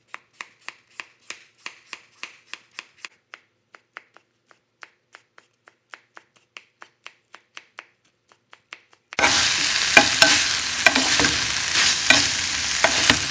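Cleaver chopping squash on a wooden cutting board, about three strokes a second, then quieter, sparser chops through black fungus (wood ear mushroom). About nine seconds in, loud sizzling starts as the squash and fungus are stir-fried in a hot pan, with clicks from the wooden chopsticks stirring.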